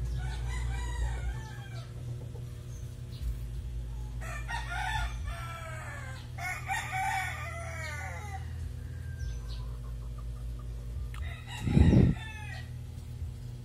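A rooster crowing several times, each crow one to two seconds long and falling in pitch at the end. A single loud thump comes near the end, over a steady low hum.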